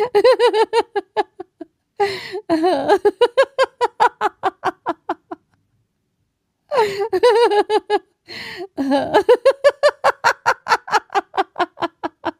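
A person laughing deliberately in four bouts. Each bout opens on a drawn-out falling note and breaks into rapid, rhythmic voiced "ha-ha" pulses, about five or six a second, that trail off.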